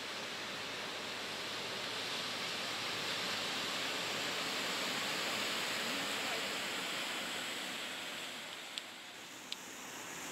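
Steady rushing noise of a train in motion, swelling a little and then easing off, with two short clicks near the end.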